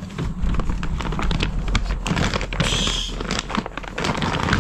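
Plastic bags crinkling and rustling as they are handled and rummaged in a storage bin.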